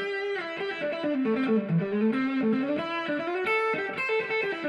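Intro music: an electric guitar playing a melodic line of changing notes.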